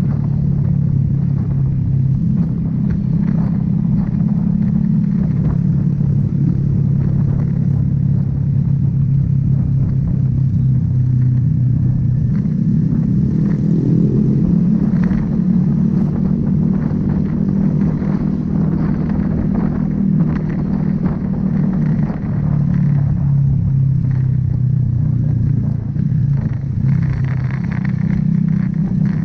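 Motorcycle engine running steadily at cruising speed in fourth gear, heard from the rider's own bike, with a brief rise in engine pitch about halfway through.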